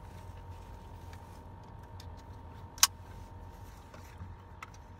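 Small clicks and handling noises from a GoPro chest-mount harness being strapped on and adjusted, with one sharp, loud click a little past the middle, over a steady low hum inside a car.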